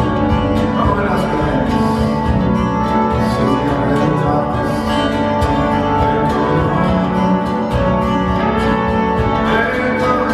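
Live acoustic folk band playing, its guitars strummed and plucked.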